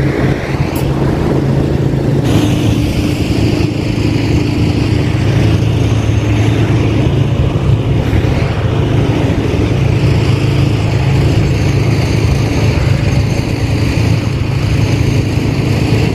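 Tracked hydraulic excavator's diesel engine running steadily; its note drops slightly about two seconds in.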